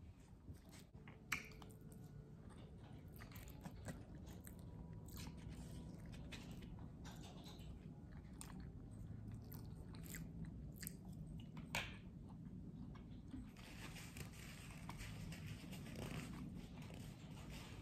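Faint, close-up chewing and biting of food, with a few sharp crunchy bites scattered through.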